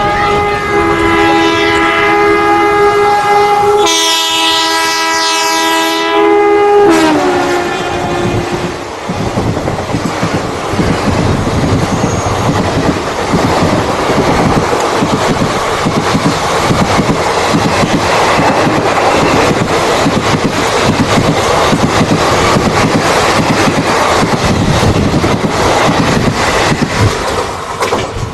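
WAP-4 electric locomotive's twin-tone horn sounding for about seven seconds as it passes at about 95 km/h, its pitch dropping sharply near the end of the honk. Then the express's ICF coaches rush past with a loud, rhythmic wheel clatter.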